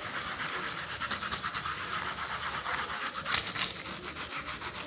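Bristles of a small paintbrush scrubbing cleaning liquid on a laptop's plastic palm rest, in quick back-and-forth strokes about five a second. There is one sharper scrape about three and a half seconds in.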